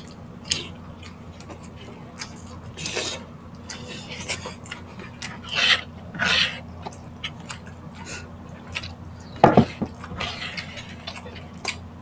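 Close-up chewing and lip-smacking as grilled street-food meat skewers are eaten, with irregular wet mouth clicks and one louder thud about nine and a half seconds in, over a steady low hum.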